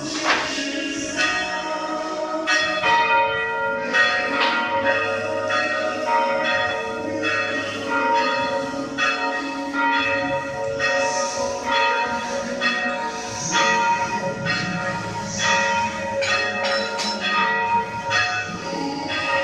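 Church bells ringing a peal of several pitches, struck about once or twice a second, each strike ringing on into the next.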